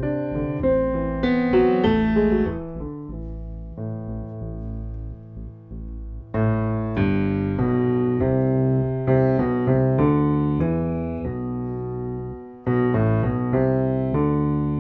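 Background piano music: piano notes and chords, quieter for a couple of seconds near the middle, then fuller again.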